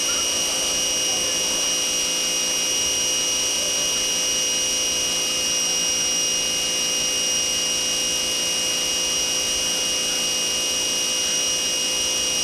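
Pressure washer running steadily: a constant high whine over an even hiss.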